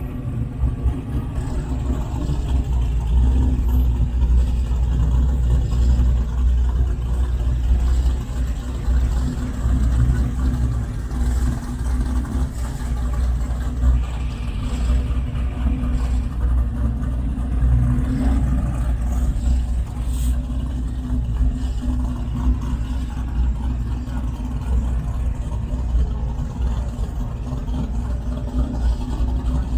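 Classic American muscle cars rolling slowly past in a line, their engines running with a steady low exhaust rumble.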